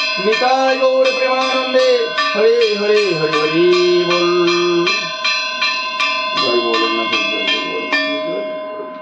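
A hand bell rung steadily at about four strokes a second for worship, its ringing tones overlapping. A held, wavering tone sounds over it in two long stretches, and the bell strokes fade out near the end.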